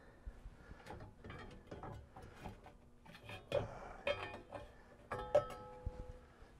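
Battery hold-down straps being undone: faint scattered clicks, knocks and rubbing of strap and buckle against a marine battery, with a brief squeak about five seconds in.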